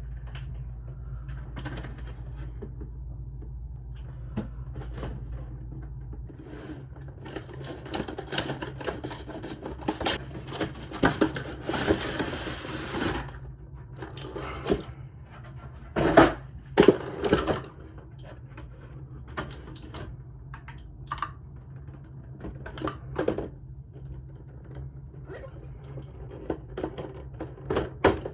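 Cardboard collection box and its packaging being handled and opened: scattered rustles, taps and knocks, with a longer stretch of rustling about eleven seconds in and a few sharper knocks a few seconds later, over a steady low hum.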